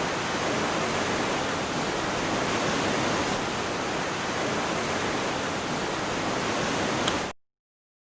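Steady, even rush of falling water from a waterfall, cutting off abruptly about seven seconds in.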